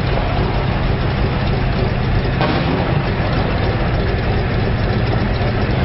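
Heavy engines of a military convoy of armoured vehicles and trucks running steadily as it moves along, a loud low drone.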